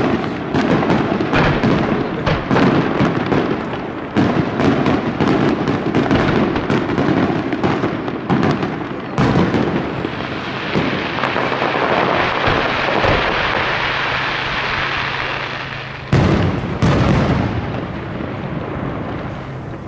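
Aerial fireworks display: a rapid run of bursting shells, then several seconds of dense steady hiss, then two loud bangs near the end that die away.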